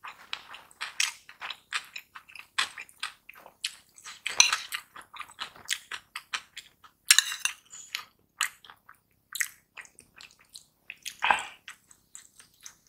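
Metal spoon scraping and clinking against a ceramic bowl as it scoops up rice, with close-miked chewing: many short clicks and scrapes, louder clusters about four and seven seconds in.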